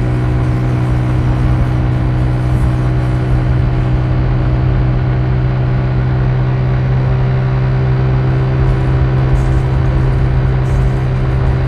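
Car driving at a steady speed: an even engine drone with tyre and road noise.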